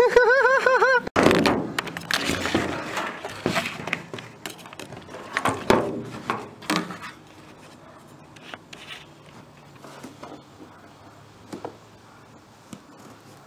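A brief warbling tone, then a cardboard box being torn open and handled: irregular scraping, rustling and thumps, busiest in the first few seconds and thinning to occasional light knocks.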